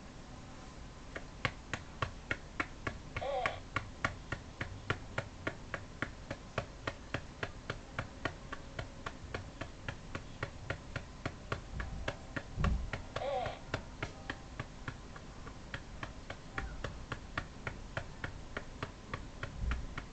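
Hand patting the hard plastic back of a RealCare Baby infant simulator to burp it: steady sharp pats, about three a second, loud because the back is hard plastic. Twice a brief higher-pitched sound stands out over the patting.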